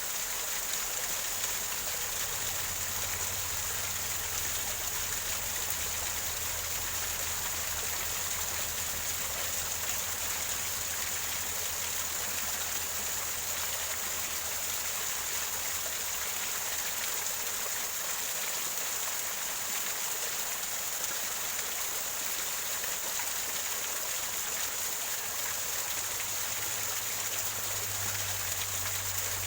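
Water from a small waterfall running and gurgling over rocks: a steady, even rush of water. A faint low hum comes and goes beneath it.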